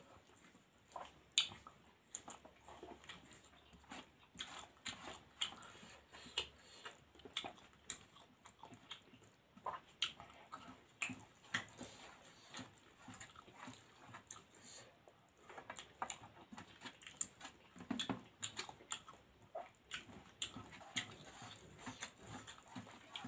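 Close-up eating by hand: fingers scraping and pressing rice against a steel plate, mixed with wet lip smacks and chewing. Many short clicks and smacks come at irregular intervals.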